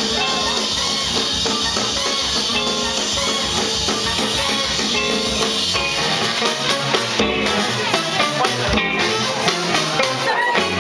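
Live soul band playing with saxophones and a drum kit keeping a steady beat; the drum hits stand out more from about halfway through.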